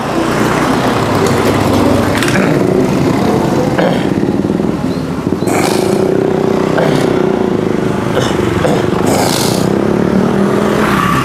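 Motor scooter engines running as motorbikes ride along the street, one passing close about halfway through, with a steady engine hum throughout.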